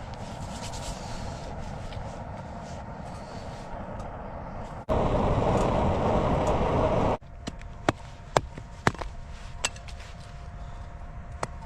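Small battery-powered blower fanning a wood fire in a homemade stove: a steady rush with a faint whine. About halfway a much louder rush lasts some two seconds. Then come scattered sharp knocks and cracks.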